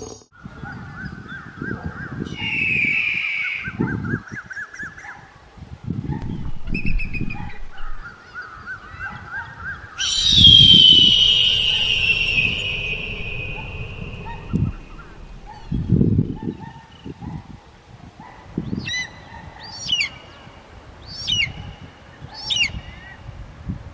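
Brahminy kite calling: a series of quavering, wavering calls, then about ten seconds in a long, loud call that slides down in pitch over several seconds, and near the end a run of short, sharp down-slurred notes. Low rumbles come and go underneath.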